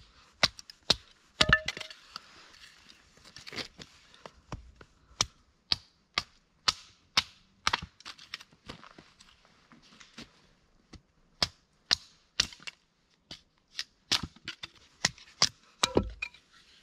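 Hatchet splitting a thin stick of wood into narrow strips on a wooden chopping block: a long, irregular series of sharp cracks and knocks, roughly two a second.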